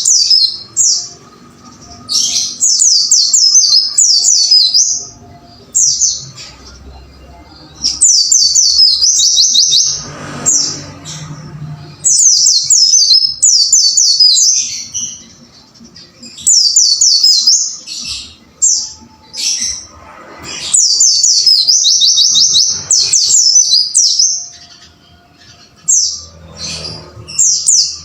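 Pleci (white-eye) singing: fast, high-pitched chirping phrases of quickly repeated notes, 'wucit wucit', in bursts of one to two seconds broken by short pauses.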